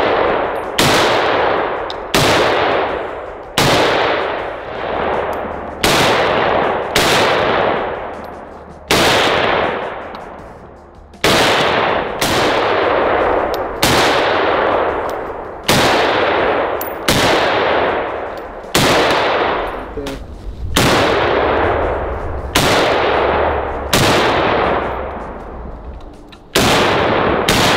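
Beretta BM-59 Paratrooper rifle firing 7.62 NATO semi-automatic: a long string of single shots at an uneven pace, roughly one a second, each followed by a long echoing tail.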